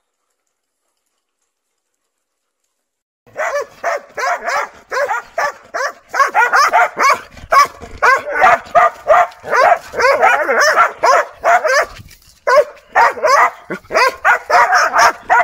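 Dogs barking in quick, continuous volleys. The barking starts about three seconds in, after total silence, and breaks off briefly near the end.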